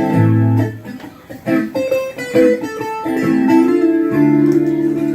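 Instrumental music led by guitar, with sustained notes and changing chords and a few brief dips in the first second or so.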